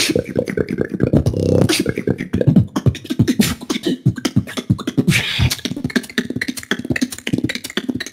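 Solo beatboxer performing a battle round: a fast, dense run of percussive mouth sounds over low buzzing bass tones, with a short hissing sound about five seconds in.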